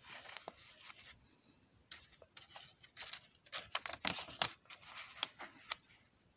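Paper pages of a hand-drawn picture book being handled and turned: rustling with a string of sharp crackles, loudest as a page flips over about four seconds in.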